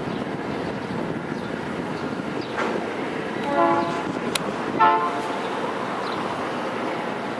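Diesel freight locomotive horns sounding two short toots about a second apart, the two crossing trains signalling to each other, over the steady running of the locomotives and wagons.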